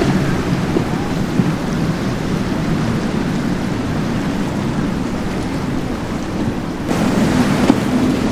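Outboard engines of a center-console powerboat running at speed through choppy water, a low steady drone under a loud rush of water and spray; the sound shifts abruptly about seven seconds in.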